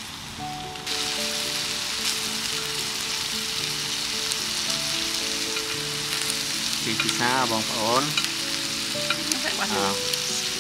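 Beef steaks and zucchini sizzling on a black ridged grill pan, a steady hiss that steps up sharply about a second in. Background music with held notes and a wavering sung voice runs underneath.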